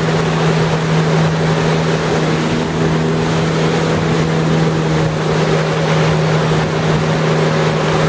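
Jet ski engine running steadily with an unchanging pitch, its hum mixed with the rush of water along the hull.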